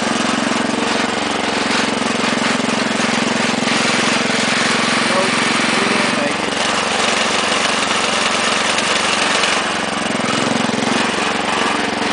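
1961 Wheel Horse garden tractor's small engine running steadily while the tractor drives along, with the hood rattling over it. The engine note shifts slightly about halfway through and again near the end.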